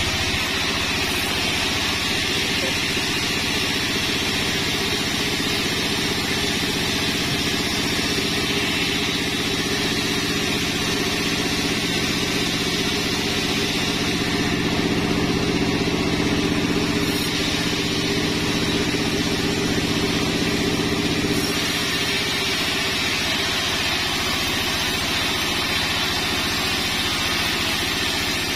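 A 36-inch band sawmill running steadily while its blade rips a sengon log lengthwise: a continuous machine drone with a hiss over it. About three quarters of the way through, the tone of the drone shifts slightly.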